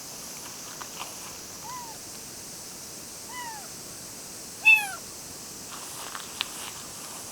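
Young kitten meowing three times, short high calls that rise and then fall in pitch, the third the loudest; a few faint clicks between them.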